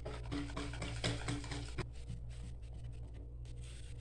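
Hand wire whisk stirring and scraping sifted flour into a thick batter in a bowl, with quick rubbing strokes for about two seconds, then lighter and quieter strokes.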